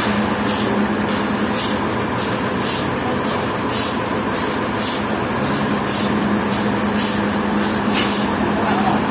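Sawmill machinery running steadily with a constant low hum, overlaid by a hissing pulse that recurs a little more than once a second.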